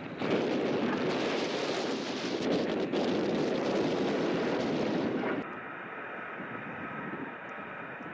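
Jet aircraft engine noise, loud for about five seconds, then cutting off abruptly to a quieter steady whine.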